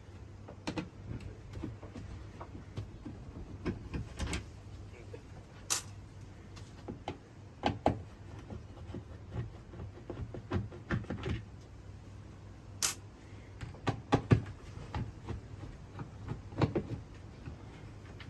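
Irregular clicks and knocks of plastic skylight hatch fittings being handled and unscrewed, with a few sharper taps.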